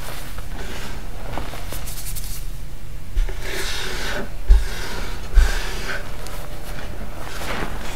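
Hands squeezing, pressing and raking through a heap of loose dyed gym chalk powder: irregular soft crunching and rustling swells, with three dull thumps around the middle.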